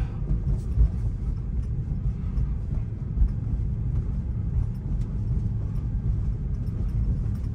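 Steady low road and tyre rumble inside the cabin of a Tesla electric car rolling slowly at about 14 mph, with no engine note.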